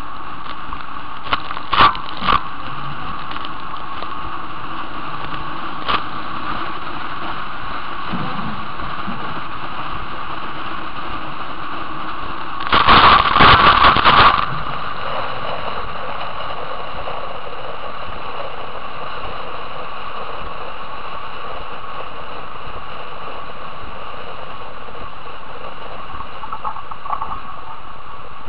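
Steady rush of wind and water past a racing trimaran's hull, heard from a camera mounted low on the bow, with a few short sharp knocks early on. About halfway through, a loud burst of spray hits the camera for a couple of seconds before the steady rush returns.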